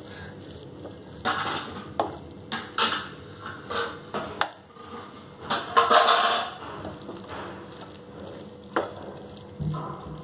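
Spatula scraping and knocking against a non-stick frying pan while okra, onion and gravy are stirred, in irregular strokes, the loudest about six seconds in.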